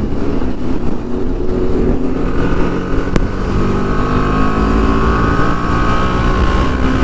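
Kawasaki inline-four motorcycle engine running at highway speed. Its pitch rises a little a couple of seconds in and then holds steady, over a heavy wind rumble on the microphone. A single short click about three seconds in.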